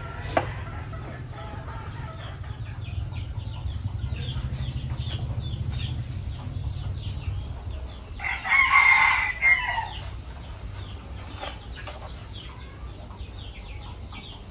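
A rooster crows once, loudly, about eight seconds in, the call lasting about a second and a half. Before it there is a steady high whine for the first few seconds and a low rumble underneath.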